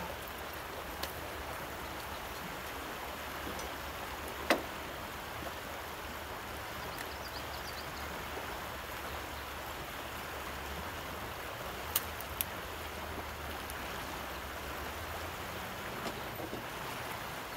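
Fast river current rushing steadily, with a few short sharp clicks and knocks, the loudest about four and a half seconds in.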